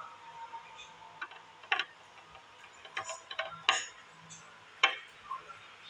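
About five sharp clicks and taps at irregular spacing, the loudest near the end: a glass nail polish bottle being handled with long painted nails.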